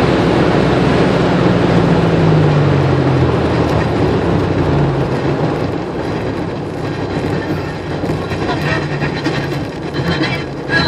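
Supercharged 3800 V6 in a Pontiac Fiero heard from inside the cabin as the car slows after a drag-strip pass: the engine note falls over the first few seconds, then the engine runs low under steady road and tyre rumble that slowly fades. A few clicks and rattles come near the end.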